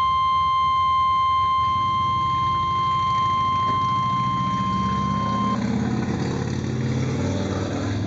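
NOAA Weather Radio's 1050 Hz warning alarm tone, one steady, shrill beep from a small receiver speaker, signalling that an alert message is about to be broadcast. It cuts off suddenly about five and a half seconds in, and a low rumbling hum follows.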